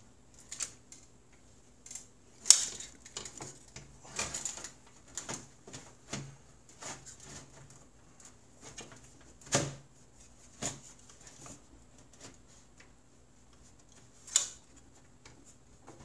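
Clicks, knocks and light scrapes of a power supply unit being pushed and slid into place in a PC case, with three sharper knocks, the loudest about two and a half seconds in and the others near ten and fourteen seconds in.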